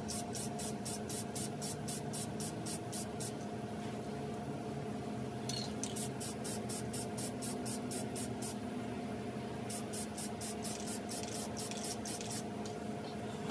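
Aerosol can of matte clear enamel spraying a cork decoy in rapid short spurts, about four a second, with a couple of pauses, over a steady low hum.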